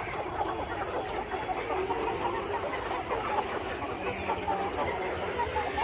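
A flock of village chickens clucking and calling together, many birds overlapping in a steady chatter.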